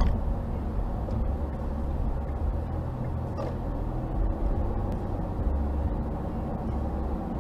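Inside a moving car: steady low road and engine rumble as the car drives along, picked up by a dashcam.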